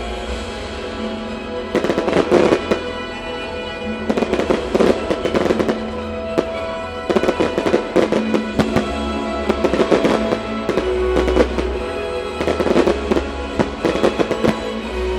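Fireworks bursting and crackling in rapid clusters over the show's music soundtrack, starting about two seconds in.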